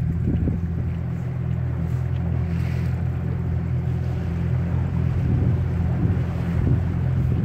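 Outboard motor of an inflatable boat running steadily, a low even hum that holds without rising or falling.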